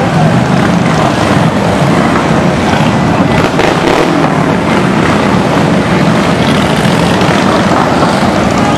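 Many large touring motorcycles and trikes riding past one after another at parade pace, their engines running in a loud, continuous mass of sound.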